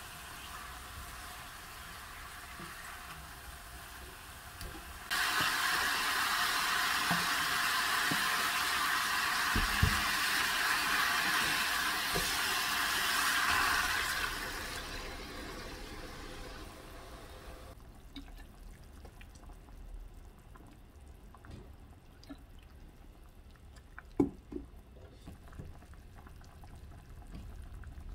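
Water rushing steadily into a pot of seasoned chicken pieces, starting suddenly about five seconds in and tapering off a few seconds after the middle, with a few knocks of a spatula against the pot.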